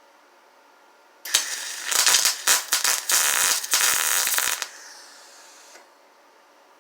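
Welding arc crackling for about three seconds, laying spot welds on a steel patch panel in a car body, then a fainter hiss for about a second after it stops.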